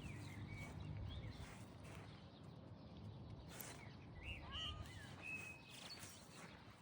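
Faint bird chirps, a few short high notes bunched in the second half, over low steady background noise.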